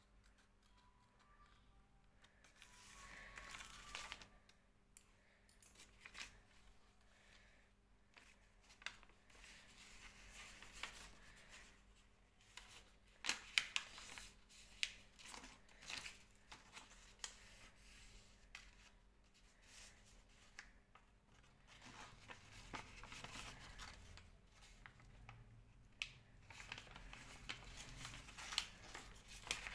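A sheet of craft paper being handled and folded by hand, with quiet rustling and crinkling and sharp crackles as creases are pressed. It starts about two seconds in and goes on irregularly after that.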